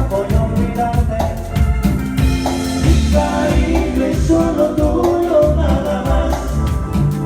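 Loud Latin American dance music with a steady drum beat and sustained pitched instruments.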